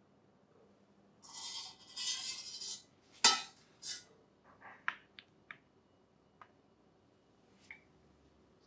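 Kitchenware being handled: two short scraping, rustling sounds, then a sharp clack about three seconds in, followed by a few lighter clicks and taps, as plastic jelly moulds and utensils are moved and set down on a counter.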